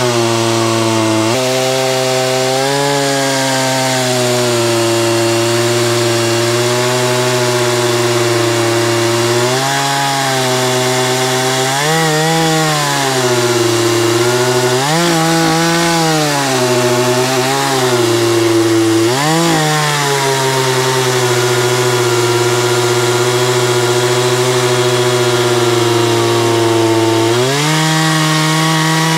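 Craftsman 14-inch two-stroke chainsaw cutting through a log at full throttle. The engine note drops as the chain loads in the cut and rises again several times, then climbs to a higher pitch near the end as the saw revs freely.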